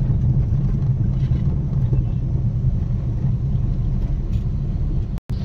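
A car's engine and tyre noise heard from inside the cabin while driving: a steady low rumble that cuts out for a moment near the end.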